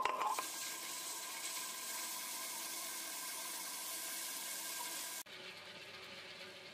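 Table-top wet grinder running, its stone roller turning in the steel drum as soaked rice is poured in at the start: a steady wet whir. The level steps down abruptly about five seconds in.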